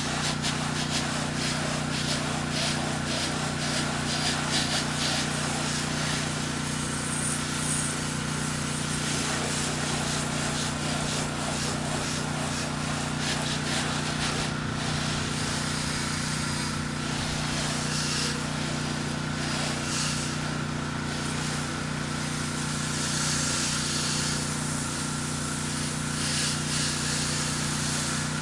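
Pressure washer's gas engine running steadily, with the hiss of a low-pressure fan spray of house-wash chemical.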